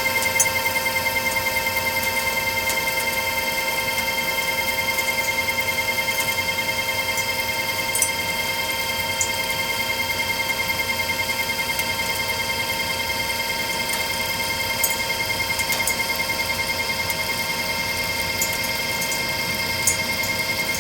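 Precision Matthews lathe running under a facing cut on a pipe flange, its gearing giving a steady whine of several fixed tones. A few sharp ticks stand out, about one every few seconds.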